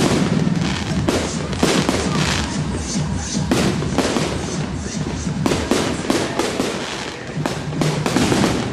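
Fireworks going off in rapid, irregular succession: many sharp bangs and crackles, some overlapping, with music playing underneath.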